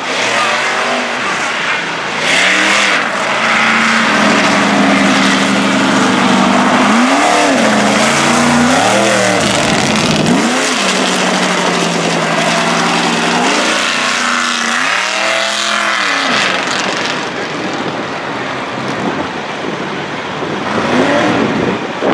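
Mega truck engine racing over a mud course, revving so its note climbs and falls several times, with two longer stretches held at steady high revs.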